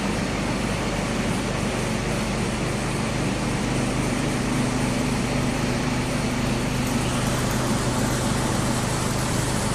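Cummins diesel engine of a hydraulic anchor drilling rig running steadily with an even hum.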